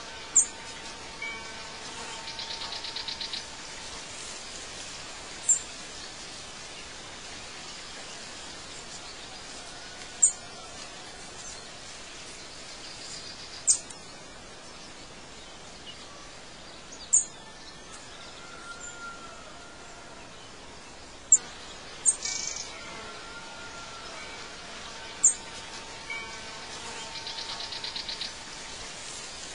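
Birdsong ambience: single sharp, high chirps every three to five seconds, with a buzzing trill near the start and again near the end, over a steady background hiss.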